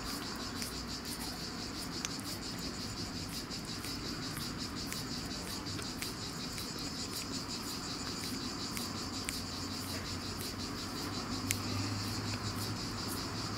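A steady chorus of insects: a high buzzing that pulses about three times a second, with a few faint clicks over it and a low hum rising near the end.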